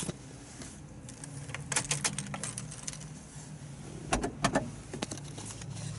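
Car keys jangling and clicking at the ignition as they are handled. The light clicks come in clusters, the loudest a little over four seconds in.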